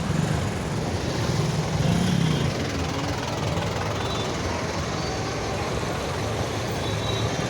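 Road traffic: a steady mix of engine hum and road noise from cars and trucks.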